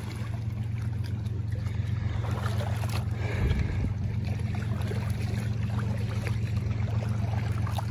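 Small waves lapping against a rocky lake shore over a steady low rumble.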